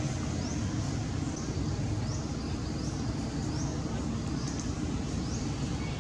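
Outdoor ambience: a steady low rumble with a short, high-pitched rising chirp repeated about once a second.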